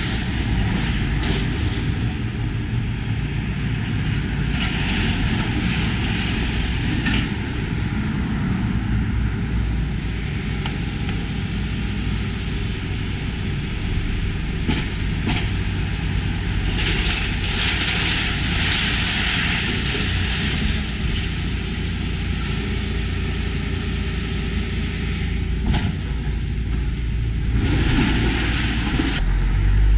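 Diesel engine of a Hitachi Zaxis tracked excavator running steadily while it demolishes a building. Several bursts of crashing, scraping brick rubble and a few sharp knocks come through over the engine.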